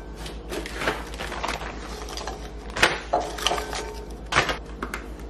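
Crisp Lotus Biscoff cookies being set into a cut-glass bowl and handled from a plastic zip-top bag: irregular light clicks and clatters, the sharpest a little before three seconds in and again past four seconds, with plastic crinkling.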